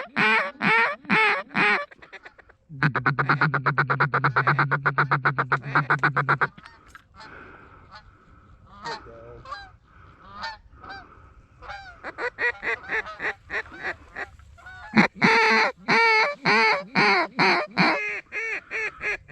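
Goose honking and clucking in quick runs. A long, fast rattling series of calls comes about three to six seconds in, softer scattered notes follow, and rapid honking picks up again over the last several seconds.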